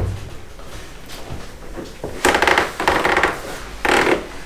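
Rustling and scuffing as a person kneels into a car's doorway, in three short bursts in the second half.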